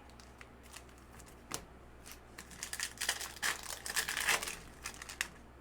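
Foil trading-card pack wrapper crinkling as cards are pulled and handled, with a few light clicks at first and a denser rustle in the second half.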